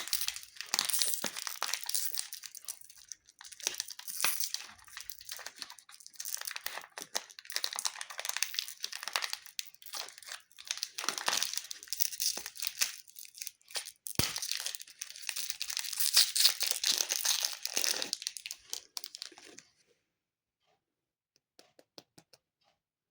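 Plastic candy wrappers being crinkled and torn open, a dense, crackly rustle in waves that stops suddenly about twenty seconds in, followed by a few faint clicks.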